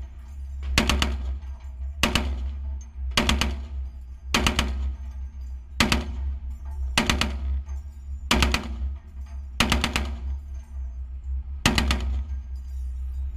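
Browning M2 .50-calibre heavy machine gun firing short bursts of a few rounds each, about one burst every second and a quarter, with one longer pause near the end, over a steady low rumble.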